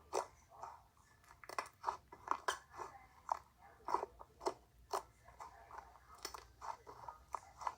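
A string of soft, irregular crunching clicks, several a second, like chewing.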